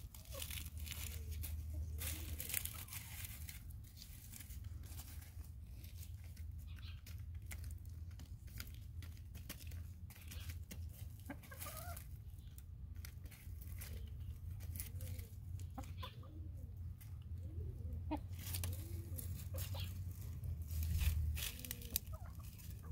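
Backyard hens clucking softly while pecking at pumpkin pieces on wood-chip mulch, with many quick taps and clicks of beaks striking the food and ground.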